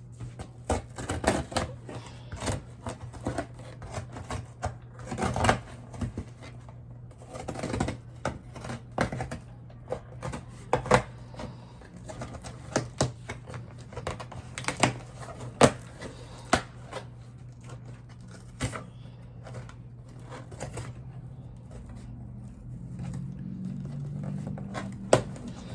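Packaging being handled and opened by hand: irregular sharp clicks, taps and short crinkling rustles, some loud, over a faint steady low hum.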